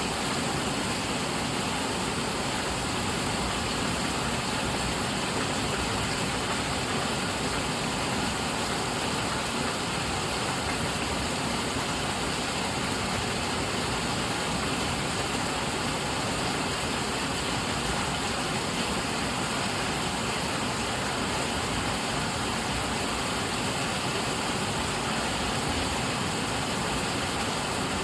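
Heavy rain falling on leaves and foliage: a steady, even hiss of countless drops that does not change.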